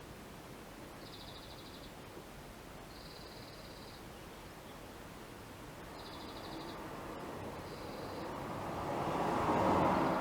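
An insect chirping in four short trills, over a steady background hiss, while a passing vehicle swells up and fades away near the end.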